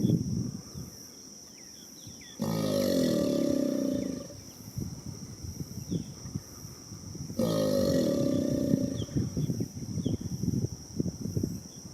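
American alligators bellowing, a mating-season display. There are deep, rumbling bellows: one is ending as the sound starts, another comes about two and a half seconds in and lasts about two seconds, and a third comes about seven and a half seconds in. A rough pulsing rumble runs between the bellows.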